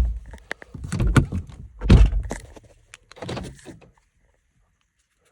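Four dull thunks over about three and a half seconds from a 2007 BMW 3 Series' central door locks, operated from the newly programmed spare key's remote.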